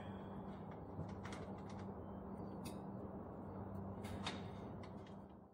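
Short metallic clicks and creaks from a wire shopping cart's caster wheel being worked by hand, in a few scattered bursts over a steady low hum.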